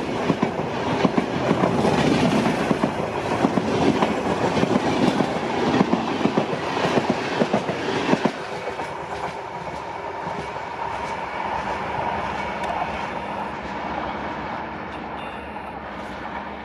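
Passenger train coaches rolling past at speed, their wheels giving a rapid clickety-clack over the rail joints. About eight seconds in the noise drops suddenly to a quieter, steady rumble that fades as the train moves away.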